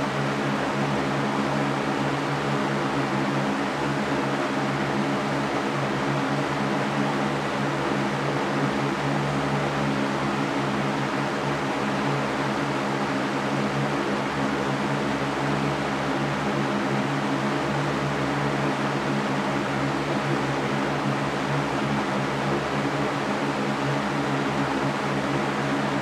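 Large drum fan behind a wire grille running steadily: an even rush of moving air with a steady hum underneath.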